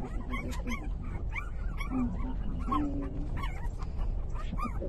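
Newborn puppies, three days old, squeaking and whimpering: many short, high cries that rise and fall, one after another, over a steady low rumble.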